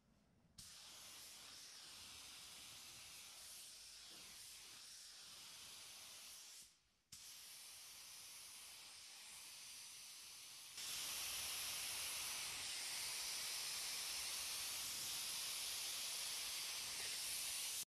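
Compressed-air automotive paint spray gun hissing as it sprays, in long trigger pulls. The hiss stops briefly about seven seconds in, comes back, then gets louder about eleven seconds in and cuts off suddenly near the end.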